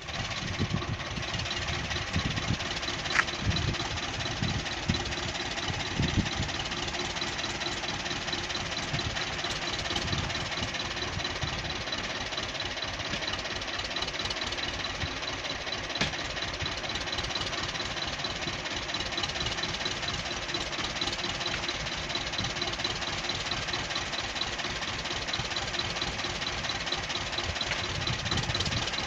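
Vladimirets T-25 tractor's two-cylinder air-cooled diesel engine idling steadily, with a few brief low surges as the hydraulics swing the V-plough's wings.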